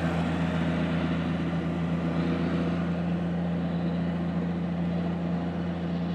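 Big articulated four-wheel-drive farm tractor's diesel engine running steadily as it tows a folded soil finisher down the road, a low drone that eases off slightly as the tractor moves away.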